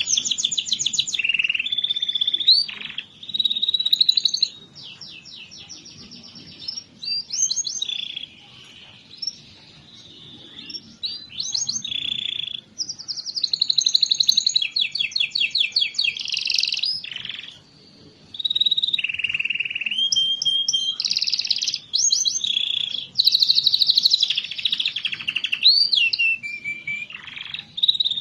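Domestic canary singing in long, varied phrases: fast rattling trills, clear whistled notes and quick sliding notes, with short pauses between phrases. It is a full, busy canary song of the kind played to coax a quiet canary into singing.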